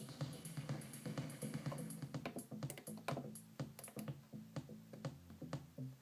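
Music playing from DJ software, with many short sharp clicks of the Traktor Kontrol S2 controller's buttons being pressed.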